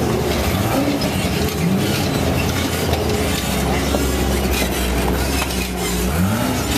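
Ultra4 rock-racing car's engine running hard and revving up and down in short rises and falls as it picks its way over rocks, with scattered knocks and clatter.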